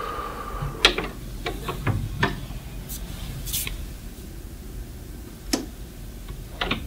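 A scattering of light clicks and knocks over quiet room tone, loudest about a second in and again a little after two seconds.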